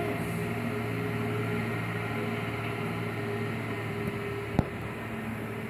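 Rear-loading garbage truck's diesel engine running at a steady low drone as the truck moves slowly off down the street, easing a little. A single sharp knock about four and a half seconds in.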